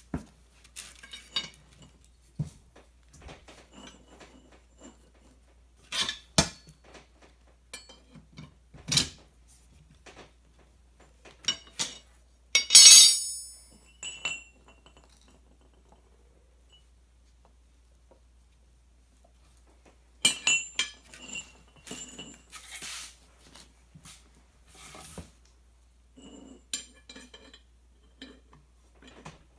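Steel tire irons clinking and clanking on a concrete floor and against the steel base of a gun safe as its edge is pried up, in scattered sharp knocks. The loudest is a ringing clang about 13 seconds in, followed by a cluster of clinks about 20 seconds in.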